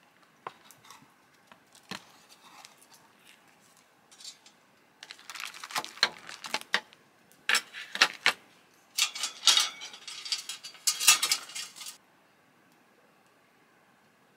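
Small hard objects clinking and rattling as they are handled: a few faint clicks at first, then several dense bursts of clatter in the second half.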